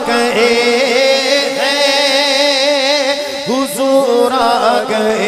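A male voice sings a long, drawn-out melismatic phrase of an Urdu naat, with a wavering vibrato on the held notes. It sounds over a steady, unbroken drone.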